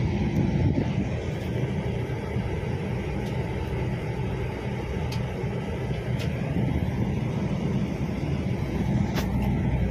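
FlixBus coach travelling at road speed, heard from inside the passenger cabin: a steady low rumble of engine and road noise, with a few faint ticks.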